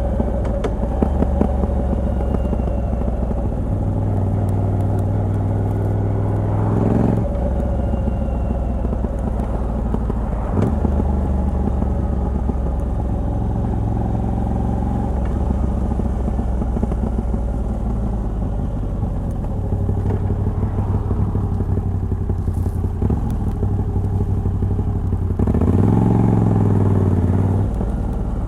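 Moto Guzzi V85TT's air-cooled transverse V-twin, on its stock exhaust with a decat pipe, running under way. The engine pitch climbs under acceleration and drops abruptly at gear changes: about a quarter of the way in, again shortly after, and after a longer climb near the end.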